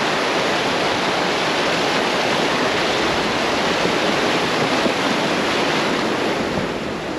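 Rushing creek water and splashing as a Jeep fords a fast, muddy stream: a steady loud wash that eases a little near the end as the Jeep climbs out of the water.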